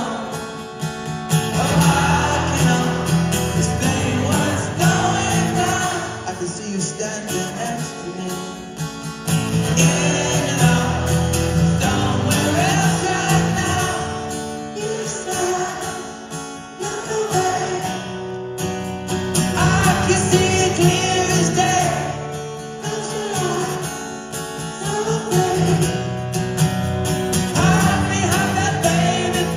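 Live rock band playing a slow song: a lead singer over strummed acoustic guitar and band backing, recorded from among the audience.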